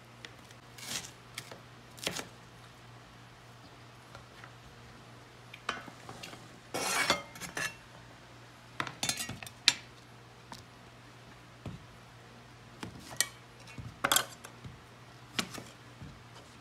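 Kitchen knife knocking and scraping on a plastic cutting board while red bell pepper and zucchini are cut, with scattered short knocks. Around the middle, a cleaver scrapes the chopped pieces off the board into a glass bowl, with clinks on the glass.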